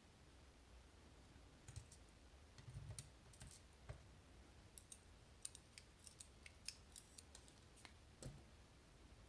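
Faint, scattered light clicks and taps of small metal parts being handled while a Miracle Magnetic lock is taken apart. The clicks come singly and in little clusters over a low background hum.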